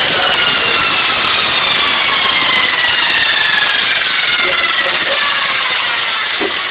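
Bandsaw blade sharpening machine running with a loud whirring noise, its whine dropping slowly and steadily in pitch.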